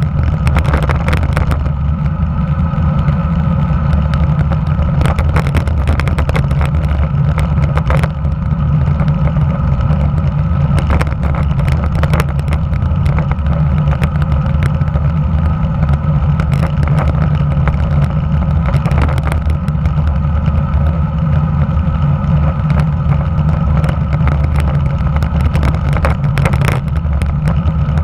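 Wind rushing over a camera microphone mounted just below a road bike's handlebars while riding, a steady loud low rumble, with scattered short knocks from road bumps carried through the mount.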